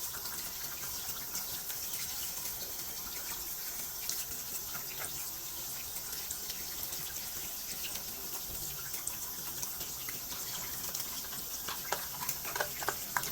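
Tap water running steadily into a sink while a plastic washing-machine drain filter is scrubbed under it with an old toothbrush, with a few short scrubbing strokes near the end.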